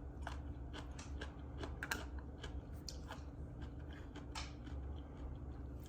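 Close-miked crunching as a person chews crisp vegetables: a run of short, irregular crackling clicks. A faint steady low hum runs underneath.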